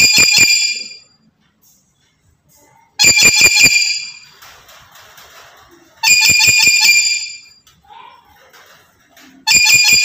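Black-capped lory calling: four loud, shrill bursts about three seconds apart, each a quick run of piercing notes lasting about a second.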